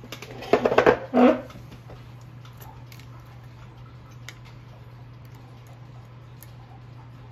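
Two loud short noises about a second in, then faint scattered small metallic clicks as the brass plates and wheels of a Regula 34 cuckoo-clock movement are handled and fitted together. A steady low hum runs underneath.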